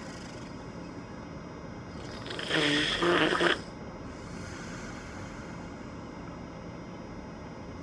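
One loud snore lasting about a second, starting a little over two seconds in, over a steady faint hiss.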